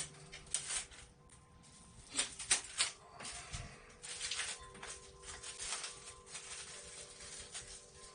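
Packing material being handled and pulled off a new benchtop planer: irregular rustling and scraping, with a few sharper scrapes about two to three seconds in.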